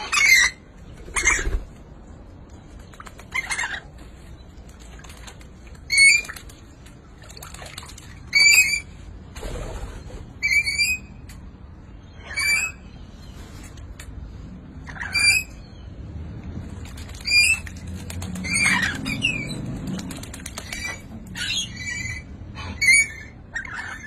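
Lorikeets bathing in a bird bath: bouts of wing flapping and splashing in the water, with short, high chirping calls every second or two.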